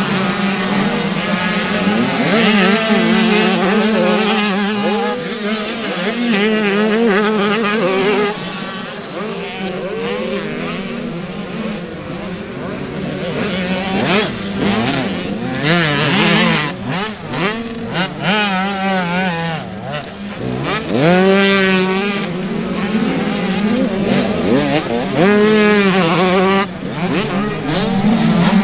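Several small two-stroke youth motocross bikes racing, engines revving up and down through the gears as they pass one after another, with overlapping rising and falling engine whines.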